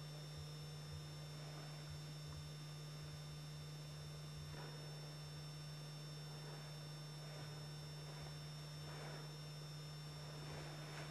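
Steady low electrical hum with an even hiss behind it, and a few faint soft noises that come and go; no clear animal sound stands out.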